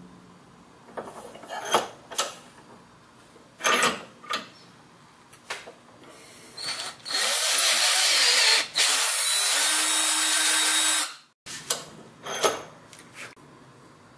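Cordless drill boring out the hole of a metal washer clamped in a bench vise. Several short bursts of the drill, then a steady run of about four seconds near the middle, cutting through the metal.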